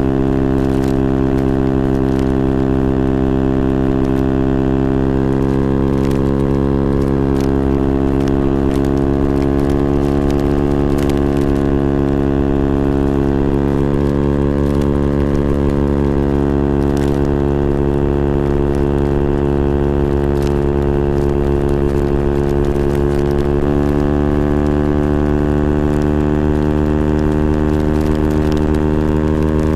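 KTM Duke 125's single-cylinder four-stroke engine running through a Scorpion exhaust with the dB killer removed, holding a nearly steady engine speed. The pitch sags slightly midway and rises a little near the end.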